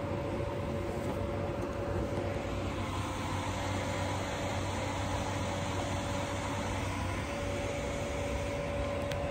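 A machine running steadily with a constant hum and a held whining tone, like a motor or fan.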